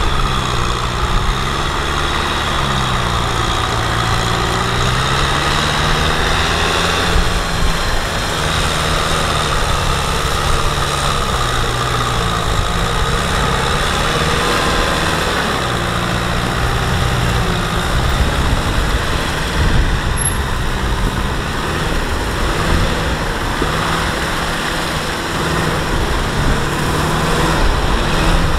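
Kubota M6040SU tractor's four-cylinder diesel engine running under heavy load as the tractor churns through deep mud, its pitch rising and falling repeatedly.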